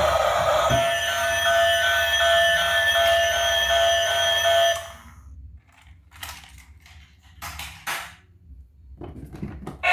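Electronic sound from a toy vehicle: a steady alarm-like tone with a rapid pulsing beep over it, cutting off suddenly about five seconds in. Light clicks and taps follow.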